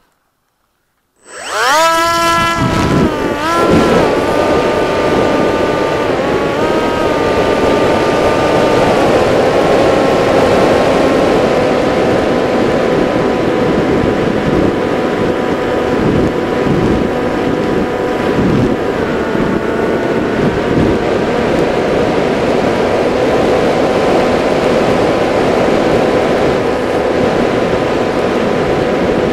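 Electric motor and propeller of an FPV RC flying wing, heard from its onboard camera: a whine that spools up quickly about a second and a half in as the wing is launched, then runs steadily with a few brief throttle changes. A constant rush of wind over the microphone sits under it.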